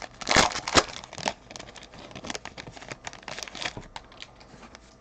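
Foil wrapper of a football trading-card pack crinkling and tearing as gloved hands open it, loudest in the first second, then lighter scattered crinkles that die away.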